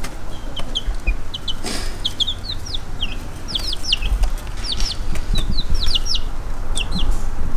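Baby chicks peeping: short, high calls that fall in pitch, coming in quick runs of two or three and busiest in the second half, over a low rumble.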